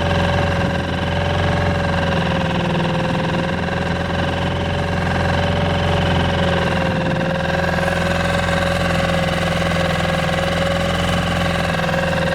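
Yamaha F5A four-stroke outboard motor running steadily at an even speed, its pitch unchanging throughout.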